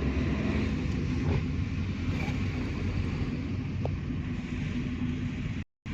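Vehicle on the move: steady engine and road rumble, cutting off abruptly near the end.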